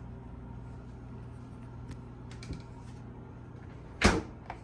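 Magic Chef refrigerator door being shut: one sharp thud about four seconds in, then a lighter knock, over a low steady hum.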